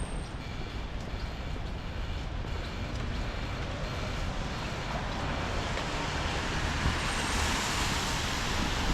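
Street traffic on wet roads: a steady low rumble, with tyre hiss on the wet pavement swelling over the second half.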